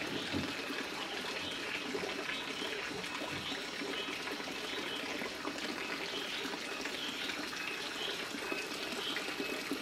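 Water running and splashing steadily into a pond.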